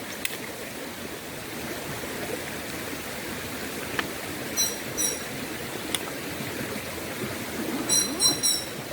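River water flowing steadily as an even rushing noise. Two brief runs of short, high-pitched notes come through it, one about halfway through and one near the end.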